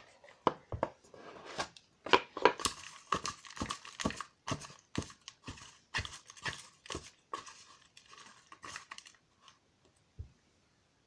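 Folded paper raffle slips rustling and crinkling as a hand stirs them in a cardboard box, a quick irregular run of crackles that thins out about nine seconds in. A soft low thump near the end.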